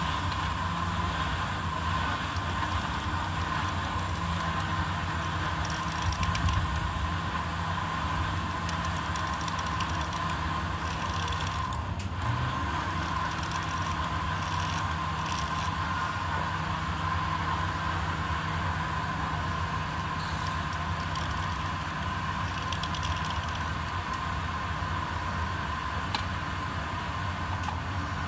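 A steady mechanical hum with a constant tone runs under a blade scraping a wet slate pencil, which gives faint scattered scratchy ticks.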